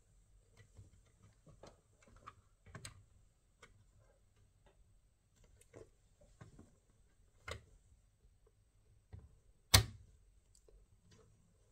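Scattered light clicks and taps, irregular, with one sharp, much louder click near the end.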